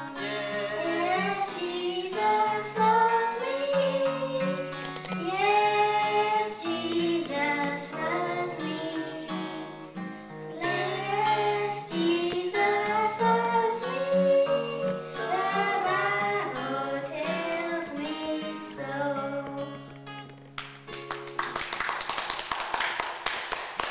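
A child singing a melody into a microphone, accompanied by a strummed acoustic guitar. The song stops about 21 seconds in and applause follows.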